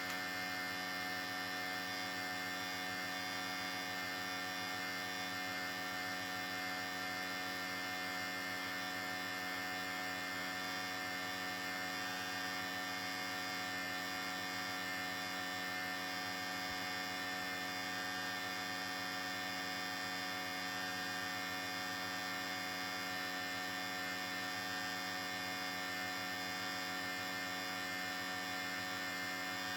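Cordless electric hair clippers running, a steady even hum with no change in speed.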